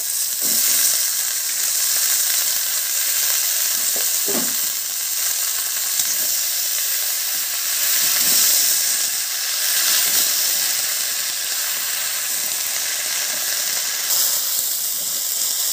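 Freshly added bottle gourd leaves and stems sizzling loudly in hot mustard oil in a kadai, giving off steam. They are turned over now and then, with a few short stirring scrapes.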